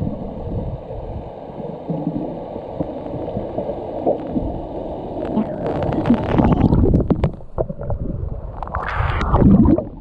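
Water gurgling and splashing, mostly low-pitched, growing louder from about halfway through with sharper, irregular splashes.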